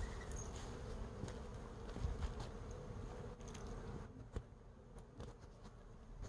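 Many honeybees foraging in a flowering tree, buzzing as a faint, steady hum that fades about four seconds in.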